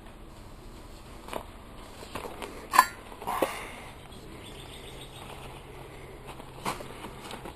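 A few scattered short clinks and knocks, the loudest a sharp ringing clink about three seconds in, over a faint low hum.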